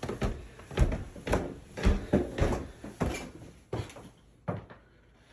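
Footsteps climbing wooden stairs, heavy thuds about two a second, then two lighter steps on the level floor near the end.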